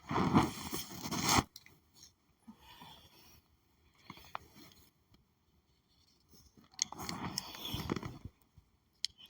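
Scraping and rustling from handling the wig's hair and lace while plucking it: two longer bursts, one at the start and one near the end, with faint small scratches between.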